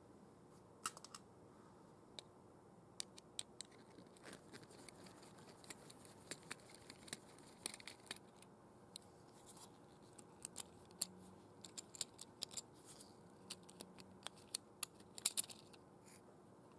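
Faint, irregular clicks and scratches of a small screwdriver turning screws in a plastic model's housing and the plastic cover being handled as it is taken apart. The clicks come more often toward the end.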